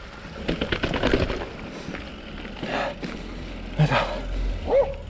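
Commencal Meta AM mountain bike rattling as it rolls over a rough dirt and cobble path, with a steady low wind rumble on the microphone. A brief squeak comes near the end.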